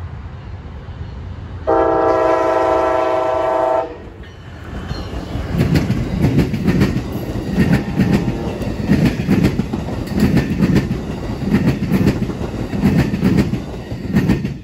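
An Amtrak passenger train sounds one long horn blast of about two seconds as it approaches. It then passes close by with a steady rumble and repeated clacks of wheels over the rail joints. The sound drops away sharply near the end as the last car goes by.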